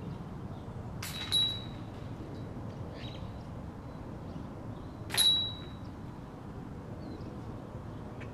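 Two disc golf putts striking the chains of a metal disc golf basket, about four seconds apart, each a sharp clash of chains with a brief metallic ring, the second one louder.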